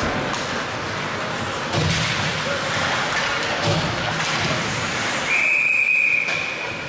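Hockey rink ambience with spectators' voices, then a referee's whistle: one steady blast of about a second and a half, a little past five seconds in.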